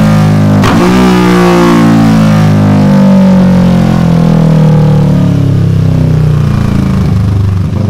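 Kawasaki Versys 650 parallel-twin engine running loud through a Delkevic round carbon aftermarket exhaust. A sharp break comes about half a second in, then the engine note slowly falls in pitch.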